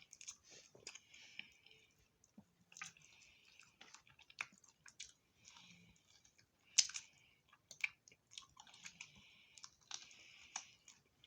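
A person chewing food close to the microphone: irregular short runs of mouth noise broken by sharp clicks, the loudest about seven seconds in.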